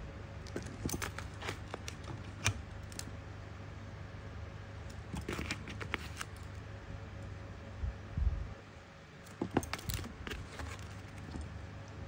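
Boxed Zippo lighters and their packaging being handled: three clusters of light clicks and rattles, with a dull thump about eight seconds in, over a steady low hum.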